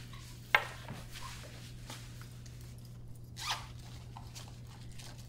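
Leather jacket rustling as someone moves, with a sharp click about half a second in and another short rustle around three and a half seconds. A steady low hum runs underneath.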